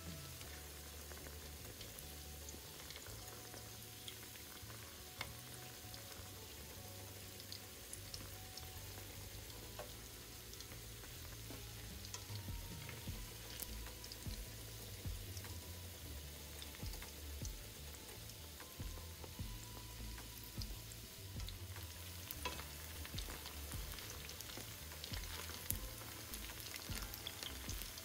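Battered seaweed rolls deep-frying in hot oil: a steady sizzle full of small crackles and pops, with occasional clicks of tongs moving the rolls in the pan.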